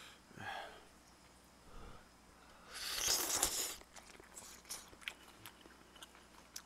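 A person slurping spicy udon broth and noodles from a spoon close to the microphone, one loud slurp about three seconds in. Quieter wet chewing and small mouth clicks follow.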